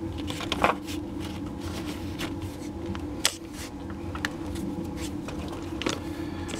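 Scattered light clicks and knocks of hands handling parts around the fuel tank and hoses under a vehicle, over a steady low hum.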